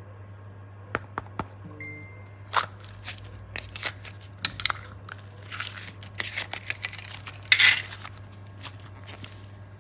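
Close handling sounds: a run of irregular sharp clicks and short crinkly rustles, the loudest about three quarters of the way through, over a steady low hum.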